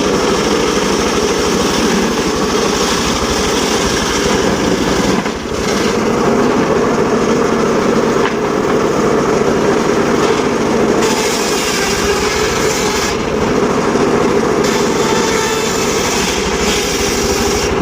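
Mobile circular sawmill running steadily and loudly, with a brief dip in level about five seconds in.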